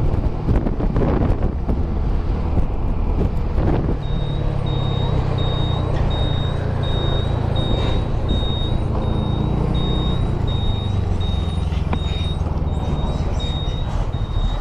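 A motorcycle running on the road, with heavy road and wind noise and a low engine hum. From about four seconds in, a high electronic beep repeats about twice a second.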